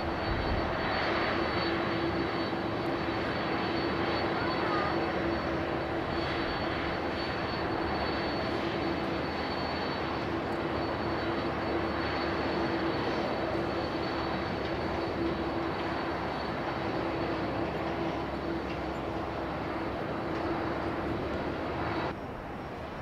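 Jet airliner engines running: a steady broad rush with a steady hum and a high whine held throughout. The sound drops away abruptly about a second before the end.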